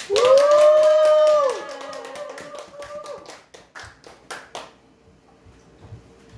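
A small audience clapping with scattered, uneven claps that die away after about four and a half seconds. At the start a drawn-out high voice call is held for about a second and a half and is the loudest thing heard.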